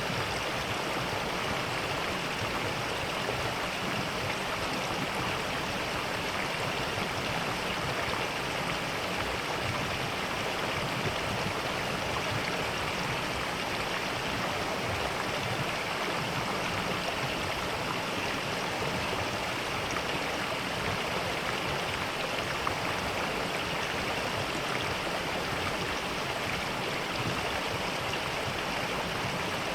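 Mountain stream flowing steadily over rocks, a constant rush of water.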